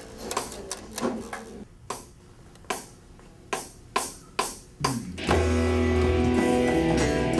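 A small rock band: a few scattered drum hits on an electronic drum kit, then about five seconds in the full band comes in loud, with sustained electric bass notes and guitar chords over the drums.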